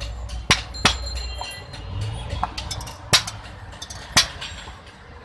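Hammers striking a steel boti blade on an anvil: four sharp metallic blows, two close together about half a second in and two louder ones about a second apart past the middle.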